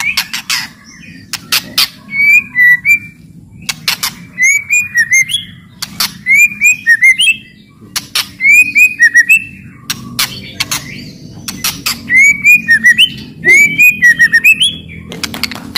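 White-rumped shama (murai batu) singing loudly: harsh clicking and crackling notes alternating with quick phrases of repeated down-slurred whistles, a phrase about every two seconds.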